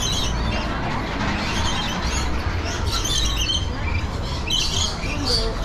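A flock of lorikeets chirping and calling, many short high calls overlapping, over a low steady rumble.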